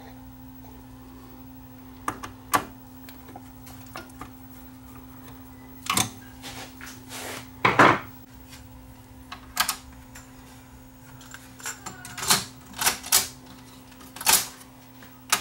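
Irregular clicks and knocks from hands handling the open Yamaha KX300U cassette deck's plastic and metal parts, about ten in all, the loudest about eight seconds in, over a faint steady hum.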